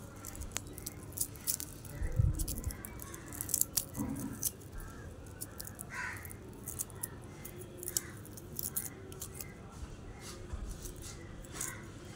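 Small objects being handled: scattered light clicks, taps and rattles, with a soft thump about two seconds in.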